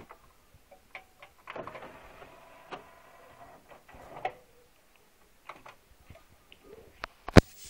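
Sony mini hi-fi's CD changer mechanism whirring for a couple of seconds with ticks and clicks as a disc is loaded, with button clicks; a sharp click near the end is the loudest sound.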